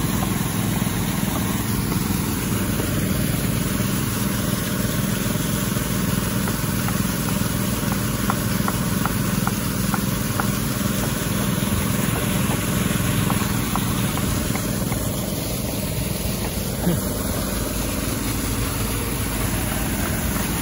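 Several small portable engine-driven water pumps running steadily together, dewatering a cofferdam, with their discharge water gushing and splashing.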